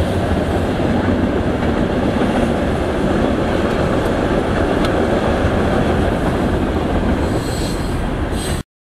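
Real train recording: a steady rumble of a train rolling on the rails, cutting off suddenly just before the end.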